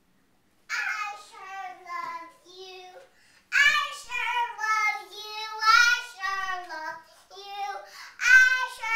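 A toddler girl singing in a high voice. She starts about a second in and sings in drawn-out, gliding phrases, with a brief pause about three seconds in.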